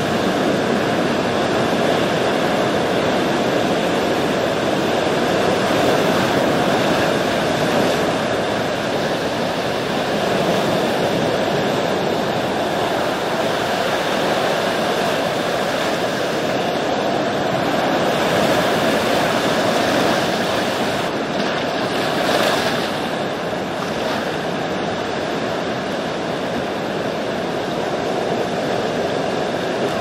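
Ocean surf: waves breaking and washing onto the shore in a steady rush of noise, swelling a little every few seconds.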